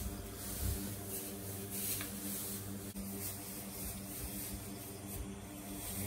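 Straw bedding rustling as a mare and her newborn foal shift about the stall, over a steady low hum.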